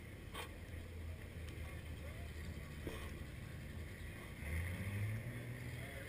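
Off-road 4x4 engines running at a distance as low, steady rumbling, with one engine revving up louder about four and a half seconds in as a vehicle starts up a steep climb.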